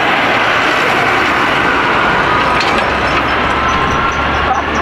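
Steady rush of wind and road noise from a car driving at speed, starting abruptly and staying even throughout.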